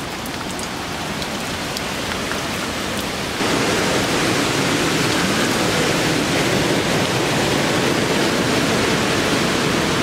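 Heavy Hurricane Dorian rain and wind rushing steadily, with scattered drop ticks, until it turns suddenly louder about three seconds in.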